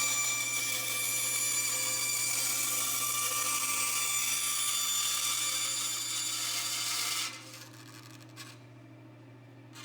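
An electric power tool running steadily on wood, with a high whine over the cutting or sanding noise. It cuts off about seven seconds in, leaving a low steady hum.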